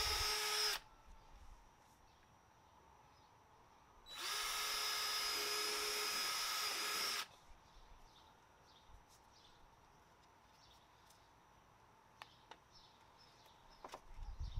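Handheld power drill running twice, drilling holes in a plastic bumper part: a steady motor whine that stops under a second in, then a second run of about three seconds starting about four seconds in.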